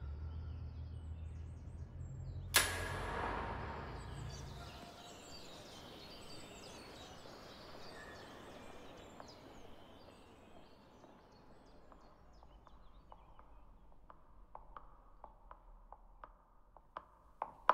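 Echoing tiled-hall ambience with a low hum that fades out in the first few seconds. A single sharp bang about two and a half seconds in rings out in a long echo. From about twelve seconds, a giraffe's hooves clop on the tile floor, about two steps a second, growing louder as they approach.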